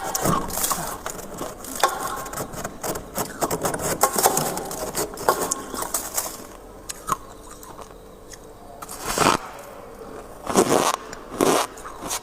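Freezer frost crackling and crunching close up: a dense run of scraping, crackling clicks for about six seconds, then three separate loud crunches of ice near the end.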